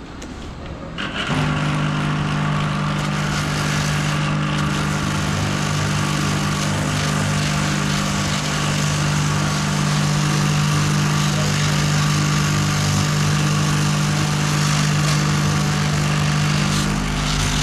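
A handheld rotary buffing tool with a small rasp wheel starts about a second in and runs steadily, grinding the inner rubber of a dump-truck tyre around the tear to roughen it for patching.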